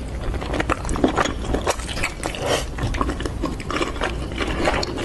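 Close-miked chewing and mouth noises of someone eating, with many irregular smacks and clicks.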